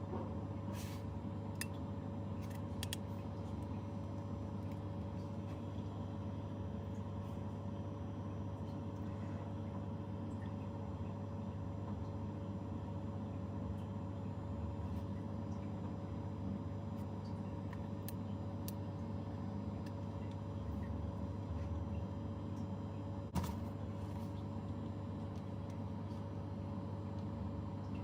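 Steady hum of a small fan motor, with one sharp click about 23 seconds in.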